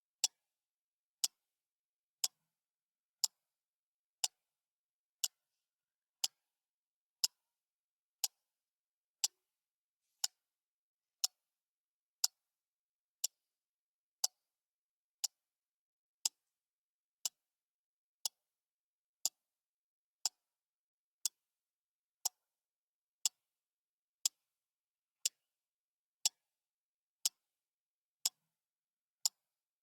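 Clock ticking steadily once a second, each tick a short sharp click with silence between.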